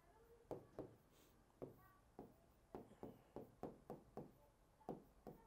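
Faint, irregular clicks of a stylus tapping and writing on an interactive smart-board screen, about two or three a second.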